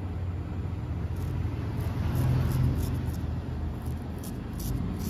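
A steady low rumble, swelling slightly about two seconds in, with faint short scratching sounds at irregular intervals.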